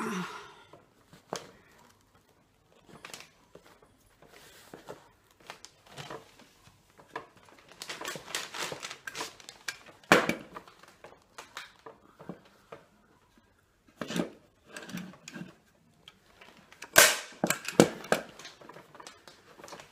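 Hand-held staple gun firing staples through upholstery fabric into a chair seat: a sharp snap about ten seconds in, then two more about a second apart near the end. Between the snaps, fabric rustles as it is pulled tight over the foam.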